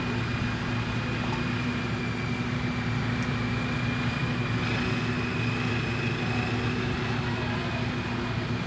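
A motor running steadily: a low, even hum with a faint high whine above it.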